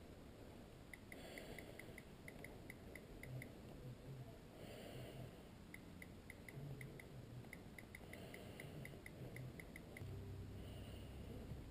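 Near silence: faint room tone with a light, regular ticking, about five ticks a second, coming in runs of a second or two.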